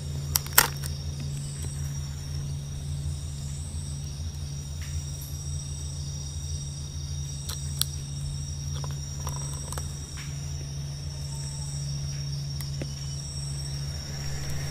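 Night insects: a steady high cricket trill with another insect chirping in repeated high pulses, over a low steady hum. A few sharp clicks break in, the loudest about half a second in and two more a little before halfway.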